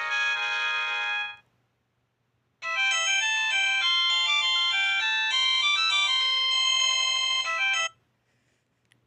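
Built-in ringtones of a Keneksi S9 mobile phone: one electronic melody stops about a second in, and after a short pause another many-note electronic melody plays for about five seconds and cuts off, followed by a faint click near the end.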